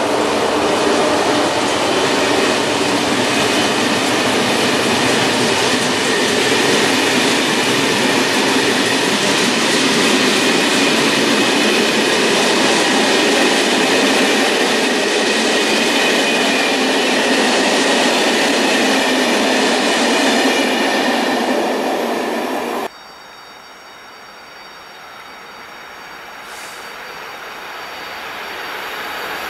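Freight train passing close by: a loud, steady rush and clatter of wagon wheels on the rails, with a faint high squeal. About 23 seconds in it cuts off suddenly to a much quieter rail sound that grows gradually louder.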